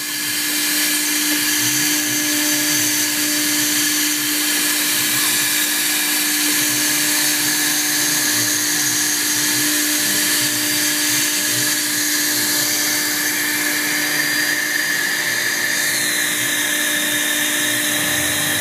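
MultiCam 1000 series CNC router with its 4 HP Perske spindle running and cutting through sheet material: a loud, steady, unchanging whine and hiss of the spindle and bit at speed.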